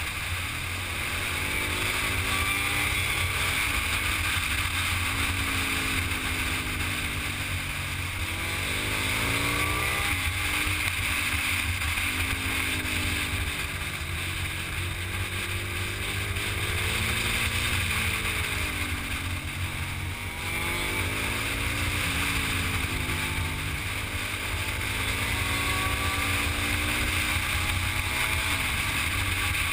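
Motorcycle engine heard from on board, its pitch climbing under acceleration and falling back several times as the rider accelerates, shifts and slows through the bends, over steady wind rush on the microphone.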